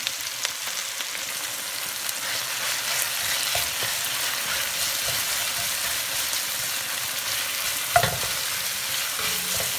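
Miso paste sizzling as it fries in hot oil with sautéed onion, tomato and ginger, stirred in with a wooden spatula in an enamelled pot, with small scraping clicks. One sharper knock about eight seconds in.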